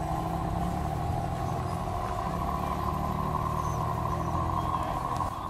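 Electric motor and gearbox of a scale RC crawler whining steadily as it crawls up a dirt slope, over a steady low mechanical hum.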